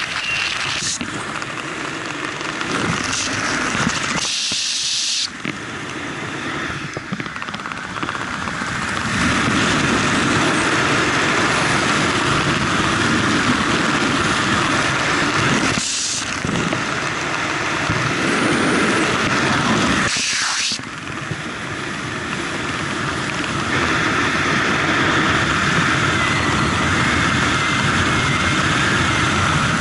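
Wind rushing over a camera microphone worn by a skydiver under an open parachute canopy, a steady noisy rush. It drops away briefly about four seconds in and dips again twice, near sixteen and twenty seconds.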